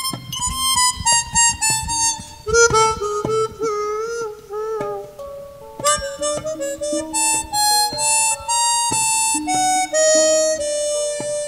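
Harmonica playing a melody of short notes, often two at a time, with some notes bent up and down in pitch and a new phrase starting about six seconds in. Light percussion knocks sound underneath.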